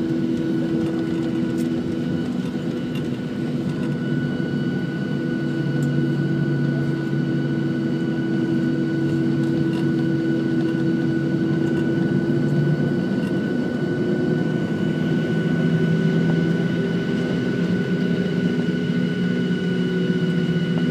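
Cabin noise of a Boeing 737-700 rolling on the ground after landing: the CFM56-7 engines at low thrust give a steady hum with high whining tones, a lower tone joins about six seconds in, and the pitch shifts slightly in the second half.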